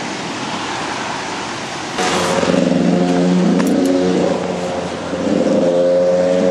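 Rushing mountain river. About two seconds in, a louder droning sound joins it: a steady low tone with several higher tones that step up and down in pitch.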